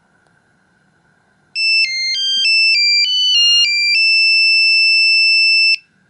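Samsung SGH-C120 mobile phone playing its switch-on melody through its small loudspeaker as it boots: a bright electronic tune of about eight quick notes leaping up and down, ending in one long held note that cuts off suddenly.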